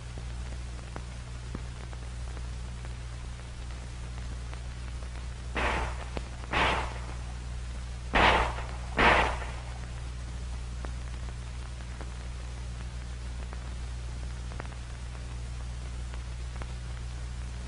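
Handgun shots, four in two pairs about a second apart, each a short dull bang, over the steady hiss and hum of an old film soundtrack.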